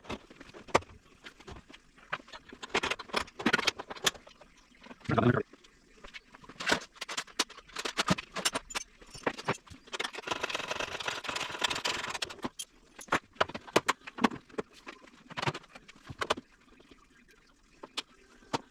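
Irregular clicks, knocks and rattles of hand work on a motorcycle, refitting its fuel tank and hoses, with a steadier noisy stretch of about two seconds near the middle.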